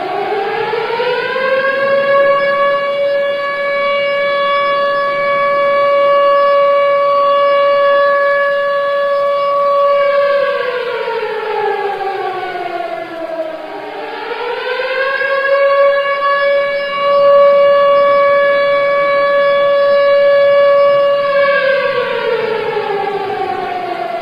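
Civil defence siren sounding the yearly 10 November remembrance for Atatürk, the signal for a moment of silence. It rises over about two seconds to a steady wail, holds it for about eight seconds, falls away, then rises and holds again, beginning to fall once more near the end.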